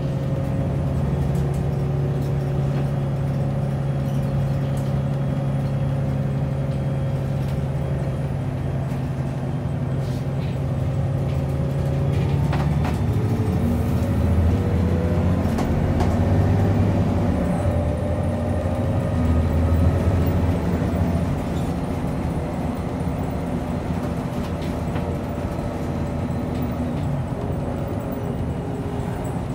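Interior of an Irisbus Citelis 18 articulated city bus under way: the engine and drivetrain run with road noise. The engine note is steady at first. About halfway through it changes and grows louder, with a whine that slides up and down for several seconds, then settles again.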